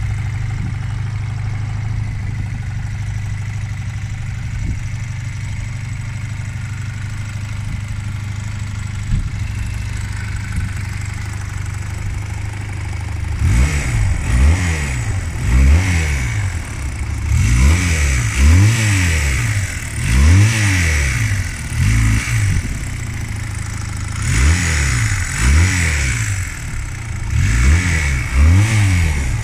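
1978 Honda CM185 Twin Star's small air-cooled parallel-twin four-stroke engine idling steadily in neutral. About halfway through it is blipped repeatedly, the revs rising and falling about a dozen times.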